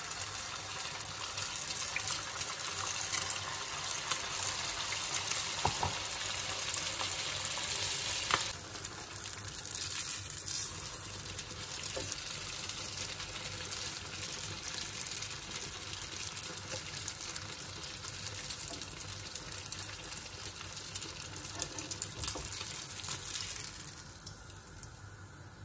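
Rice-and-egg batter deep-frying in hot oil in a pan: a loud, steady sizzle with scattered sharp crackles. It starts as the batter is ladled in and dies away near the end.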